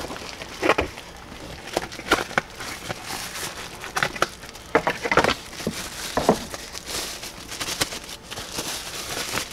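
Packaging wrap and tissue paper crinkling and rustling in irregular bursts as hands unwrap a boxed camera mirror unit.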